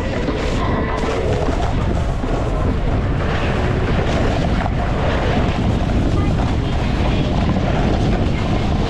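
Steady loud wind rushing over the microphone of a snowboarder riding downhill. The end of a music track is heard for about the first second.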